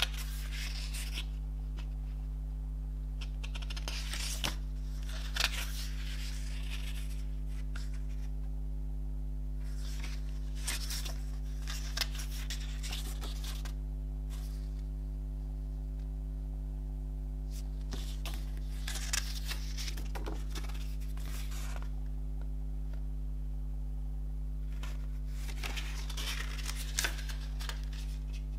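Pages of a paper CD lyric booklet being turned and handled: crisp paper rustles in about five short bouts a few seconds apart, over a steady low hum.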